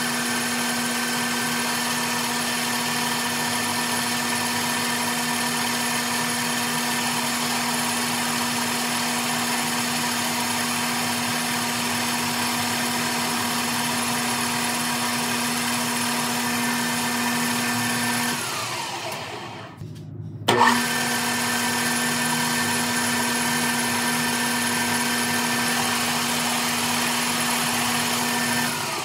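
Metal lathe running with a steady whine while turning an aluminium bar, the pitch raised by double-speed playback. It spins down and stops about 18 seconds in, starts again with a jolt about 20 seconds in, and begins to wind down once more at the very end.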